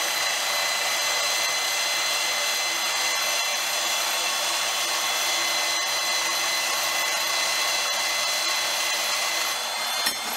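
Milwaukee Portaband portable band saw with a bimetal blade cutting through steel plate: the motor runs steadily with a high whine while the blade rasps through the metal. Just before the end there is a brief clank as the cut-off piece comes free.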